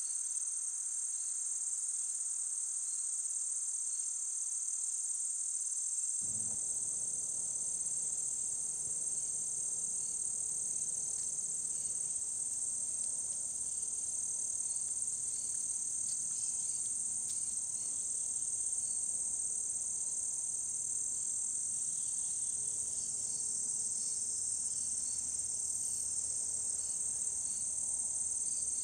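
A steady, high-pitched insect chorus, like crickets trilling, that runs on without a break. Faint low background noise comes in about six seconds in.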